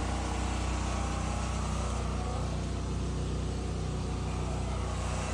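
An engine running steadily, a constant low hum that holds the same pitch throughout.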